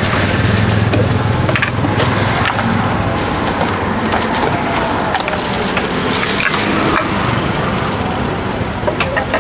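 Street-stall work sounds: scattered, irregular knocks and clatter of utensils and a wooden mortar and pestle, over a steady hum of traffic that is strongest in the first few seconds.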